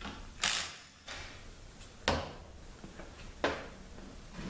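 Three sharp metal clicks about a second and a half apart, from hand tools working a stubborn bolt out of a Nissan RE4R01A automatic transmission's oil pump.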